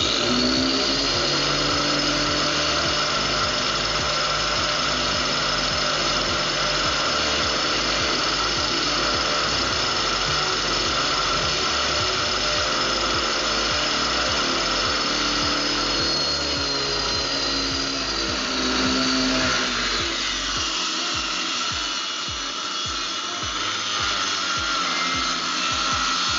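Angle grinder fitted with a saw blade, mounted as a table rip saw, running at speed with a steady high whine while ripping wood. About twenty seconds in the whine dips slightly and the sound turns rougher as the blade works through the board.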